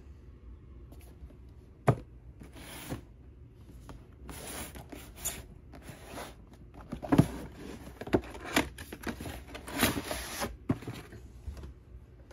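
Cardboard toy packaging being handled and opened: irregular scraping and sliding of the box with a few sharp knocks.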